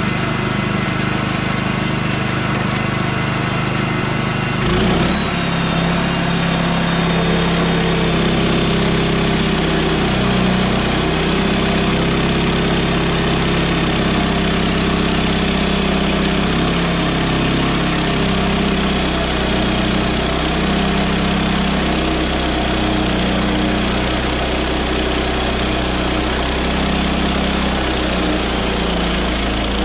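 Gas engine of a Woodland Mills HM126 portable band sawmill running; about five seconds in it revs up, and then it works under load as the band blade cuts through a pine log, its pitch dipping and recovering again and again with the cut.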